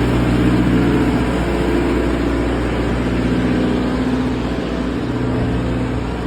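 Large engine running steadily, a low hum whose pitch shifts slightly now and then.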